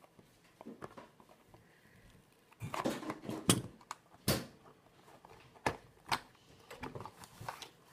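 Scissors cutting into a small cardboard parts box, then the box being opened and handled: scattered scrapes, taps and clicks, busiest about three to four and a half seconds in, with a few sharp clicks after.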